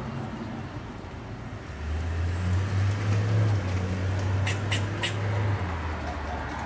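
Fox squirrel barking: three short, sharp barks in quick succession a little past the middle, over a low steady rumble.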